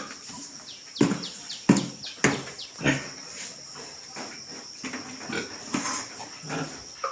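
Pigs grunting and squealing: several loud calls in the first three seconds, then quieter ones, over a steady high hiss.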